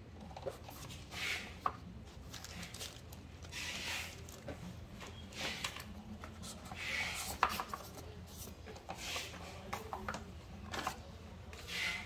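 Paper and cardboard packaging being handled: a sheet and card insert rustling and sliding against the box in separate swishes every second or two, with a few light clicks and knocks.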